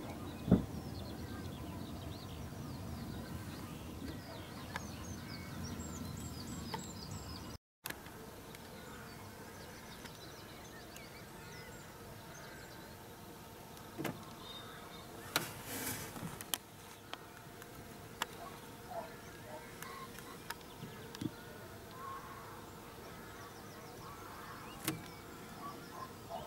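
Quiet countryside ambience: small birds chirping in the distance and a low rumble that breaks off abruptly about eight seconds in, with a few sharp clicks scattered through, the loudest about half a second in.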